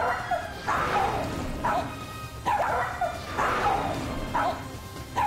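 Small dogs barking aggressively at each other, a rapid series of about eight sharp barks as one dog lunges at the other.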